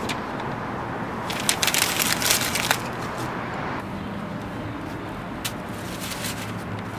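A sheet of printer paper being crumpled in the hands: a burst of crinkling and crackling from about one to three seconds in, followed by a steady background hiss with a few faint rustles.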